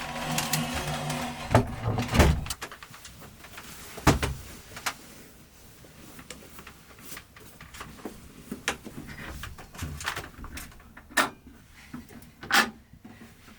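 A series of sharp knocks and clunks of things being handled in a small room, like doors or drawers opening and closing, the loudest a few seconds apart, with a short pitched creak or whine in the first two seconds.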